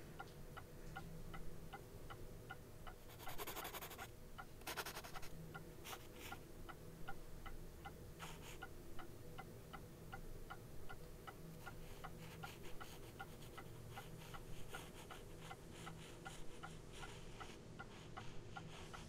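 A clock ticking steadily and faintly, about two ticks a second, over a low room hum, with a few brief scratchy rustles in the first half.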